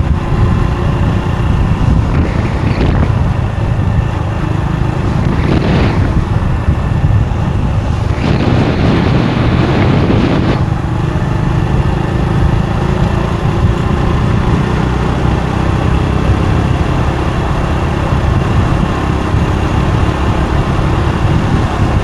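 Riding on a motorbike: steady wind rush on the microphone over the bike's engine and road noise. There are louder rushes of noise about three seconds in, again about six seconds in, and a longer one from about eight to ten seconds in.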